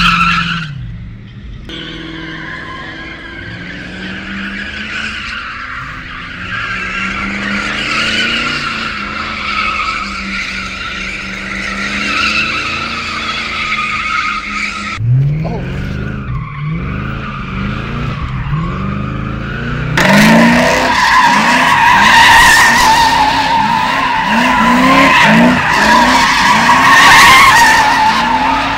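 Car doing burnouts and donuts: tyres squeal steadily while the engine revs up again and again, about once a second. The squeal and revving get louder after a cut about 20 seconds in.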